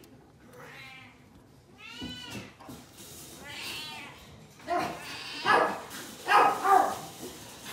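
Newborn Japanese Chin puppies crying: a string of thin, high squeaky cries, each rising then falling in pitch, about six in all, growing louder in the second half.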